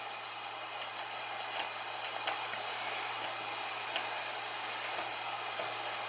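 Scattered small metallic clicks and ticks of an Allen key working the hex screws on a 3D printer's Y-axis end-stop micro switch as they are tightened, over a steady whirring hiss.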